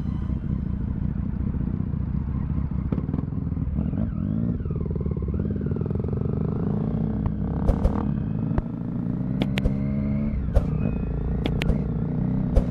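Triumph Street Triple 675's inline three-cylinder engine running under way, its pitch drifting up and down a little, with several sharp clicks in the second half.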